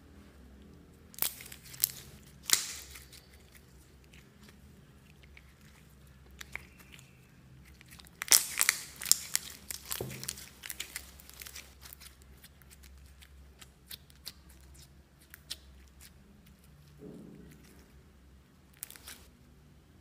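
Glossy slime squeezed and poked by hand, giving sharp crackling pops: a few in the first three seconds, a dense run from about eight to eleven seconds in, and one more near the end.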